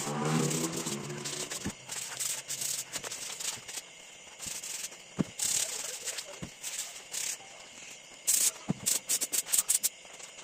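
Sandpaper rubbed by hand over a wooden stool: rough scratchy strokes, with a quick run of rasping strokes near the end and a few sharp knocks of wood on the bench. A person's voice sounds briefly at the start.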